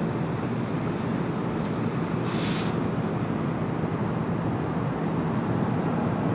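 NJ Transit push-pull commuter train approaching, with a Multilevel cab car leading and a PL42AC diesel locomotive pushing from the rear: a steady low rumble that grows slightly louder. A brief hiss comes about two seconds in.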